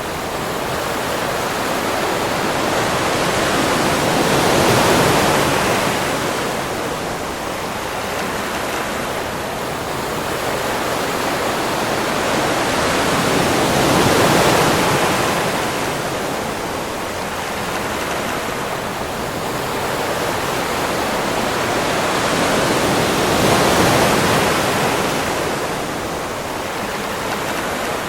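Sea waves washing onto a beach. The surf swells and fades three times, about ten seconds apart, over a steady rush of water.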